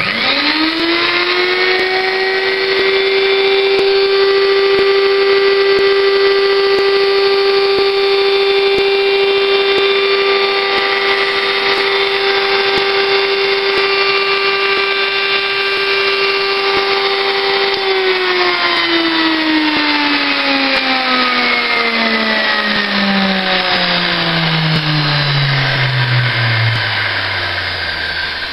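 Fein MSfa 679d electric angle grinder switched on and spinning up within a second to a steady high whine, running free. About eighteen seconds in it is switched off and coasts down, the whine falling slowly in pitch.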